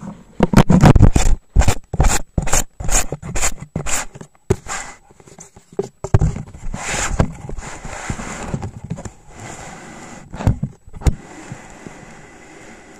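Handling noise on a camera shut inside a homemade PVC-pipe housing: a quick run of sharp knocks and scrapes against the case, then a longer rubbing scrape that fades to a low rustle, with a couple more knocks near the end.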